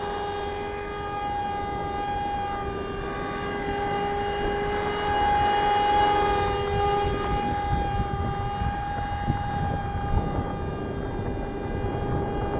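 FORZA450 RC helicopter flying with a steady, even whine from its rotor drivetrain. It runs smoothly on a newly replaced main rotor gear, with no abnormal gear noise.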